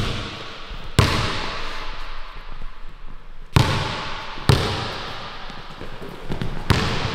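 Basketball dribbled hard on a hardwood court, four sharp bounces at uneven intervals, each ringing out in the gym's echo.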